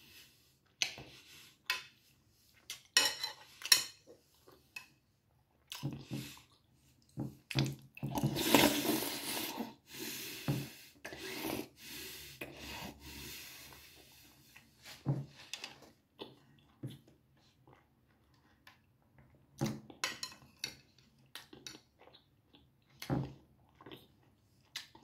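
A fork clinking and scraping on a plate in scattered short knocks, with a longer scrape about eight to ten seconds in, and mouth-close chewing between.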